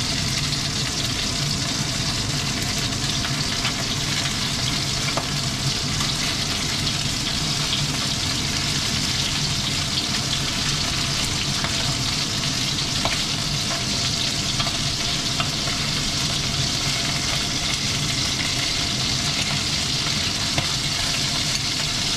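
Chicken wings sizzling steadily in hot oil in a wok, browning to a light char. A few light clicks come from a wooden spatula and chopsticks turning the pieces.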